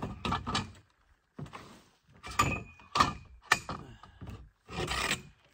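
Metal tent-frame poles being picked up and handled on a wooden deck: a series of knocks and clanks, several with a short metallic ring.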